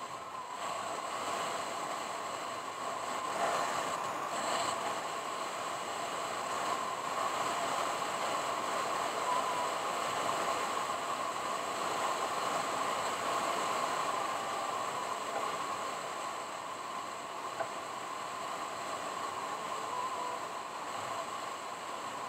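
Steady road noise of a car driving: an even hiss of tyres on pavement with no distinct engine note.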